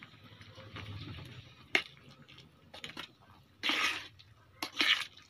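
A spoon stirring macaroni in a pot: a sharp clink of the spoon on the pot just under two seconds in, then two short scraping rushes near the end.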